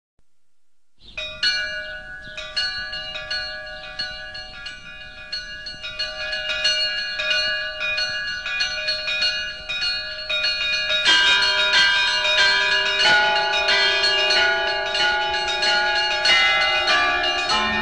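Church bells ringing in a fast peal of many overlapping strokes, each note ringing on. About eleven seconds in the peal grows louder as a deeper bell joins.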